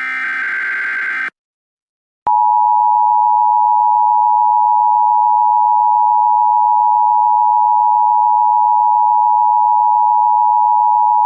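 Emergency Alert System tones: a harsh digital data burst of the EAS header ends just over a second in. After a moment of silence, the EAS two-tone attention signal starts and holds as a loud, steady dual tone, announcing an emergency alert message.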